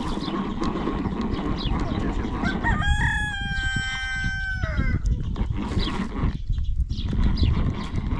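A rooster crows once, a single call of about two seconds that holds its pitch and then drops at the end, over a steady low background rumble.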